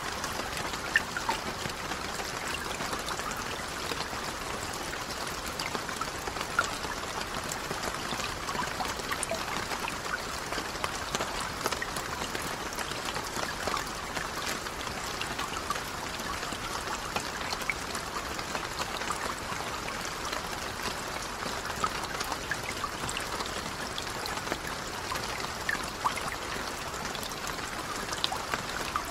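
Steady rain falling on lake water: a constant even hiss with many scattered, sharper drop splashes.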